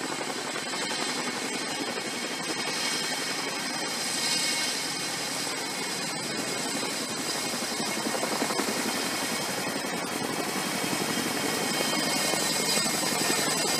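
Boeing CH-47 Chinook tandem-rotor helicopter hovering low with underslung loads: a steady rush of rotor and engine noise with a high turbine whine over it, growing a little louder near the end.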